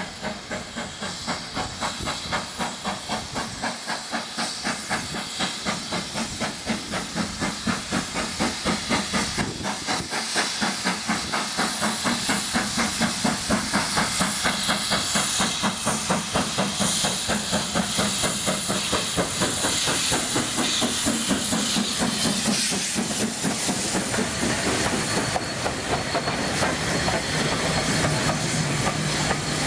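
Steam locomotive working a train, its exhaust beats coming in a steady rhythm and growing louder as it approaches, then passing close by with steam hiss and the clatter of coaches on the rails near the end.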